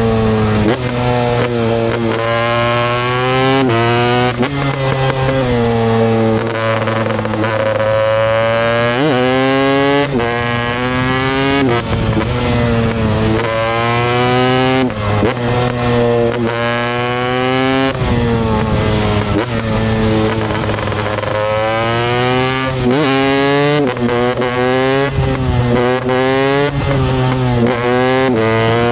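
Husqvarna TE 250i single-cylinder two-stroke dirt bike engine, the revs climbing and dropping over and over as the throttle is worked, a rise every second or two followed by a quick fall.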